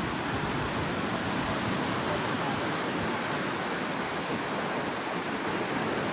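Steady wash of sea surf on a beach: an even, unbroken rush of noise.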